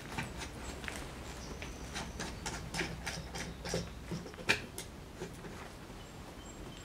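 Clamps being tightened on a freshly glued wooden keel lamination: a string of irregular clicks and ticks, with one louder knock about four and a half seconds in.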